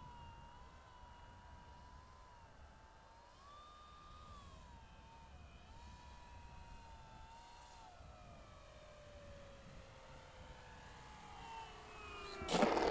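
Brushless electric motor and propeller of a model plane whining steadily in flight, with a brief rise in pitch. About two-thirds of the way in the pitch falls steadily as the throttle is eased back for the landing approach. A sudden loud noisy burst comes near the end as the plane passes low.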